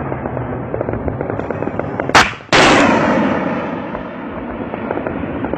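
A surface-to-air missile launching about two seconds in: a sharp crack, then a sudden loud rushing roar that fades away over the next two seconds. Constant crackling runs underneath.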